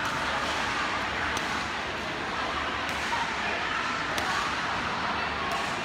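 Badminton rackets hitting a shuttlecock: sharp clicks about every second and a half, over the steady din of a busy sports hall with voices.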